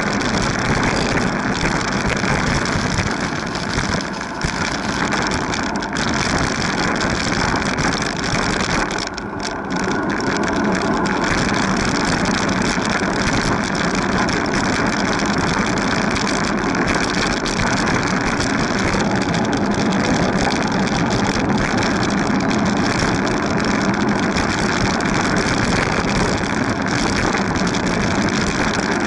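Steady rushing wind and road rumble on a camera mounted on a moving bicycle, with brief dips about four and nine seconds in.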